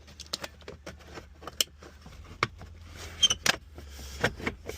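Scattered sharp clicks and clinks of keys and hand tools being handled, loudest about three and a half seconds in, over the low steady hum of a car engine idling.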